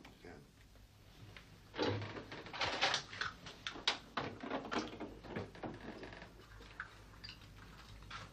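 Refrigerator door pulled open and a beer bottle taken out: a quick run of knocks, clunks and rattles starting about two seconds in, thinning out towards the end.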